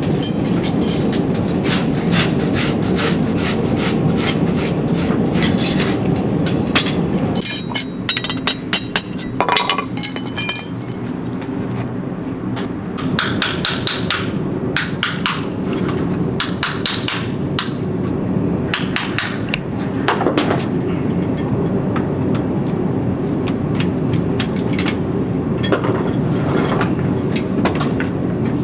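Farrier's hammer striking steel, in runs of quick blows with a metallic ring, over a steady low hum.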